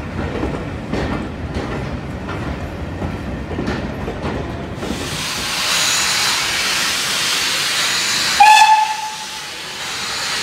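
Departing train coaches rumbling over the track, with wheels clicking on rail joints. About five seconds in, this gives way to loud steam hissing from a BR Standard Class 4 2-6-4 tank locomotive, No. 80097. Near the end comes one short, high whistle blast, the loudest sound.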